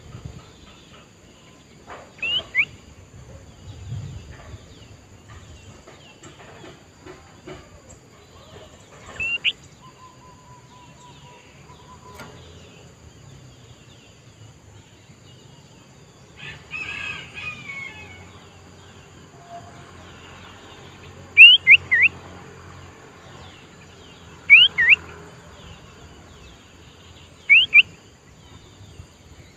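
Sooty-headed bulbul (kutilang) calling in short, sharp, downslurred notes. A few single notes come first, then quick runs of two or three notes in the second half.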